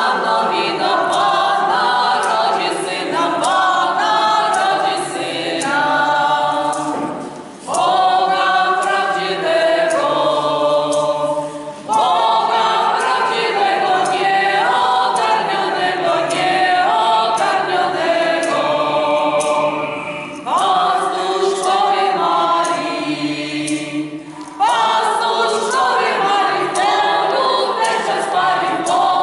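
Mixed choir of men's and women's voices singing a Polish carol (kolęda) a cappella, in phrases broken by short pauses for breath.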